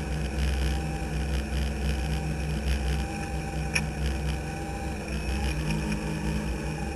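Rotary-engined hillclimb race car's engine idling steadily with the car stopped, a low, even hum, with one small click near the middle.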